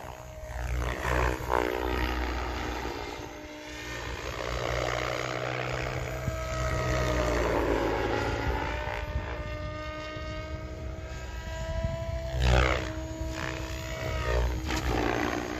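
Electric SAB Goblin RC helicopter flying low, its motor and rotor whine rising and falling in pitch as it moves. Near the end come two short bursts of chopping as the main blades cut into long grass.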